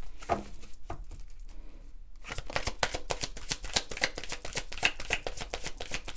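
A deck of oracle cards being shuffled by hand: a few soft taps at first, then from about two seconds in a fast, continuous run of card clicks.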